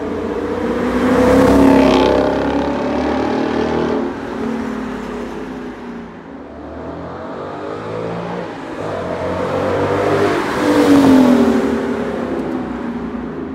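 Sixth-generation Ford Mustang accelerating hard as it drives past, engine revving. It goes by twice, loudest about two seconds in and again about eleven seconds in, the second time with the pitch dropping as it passes.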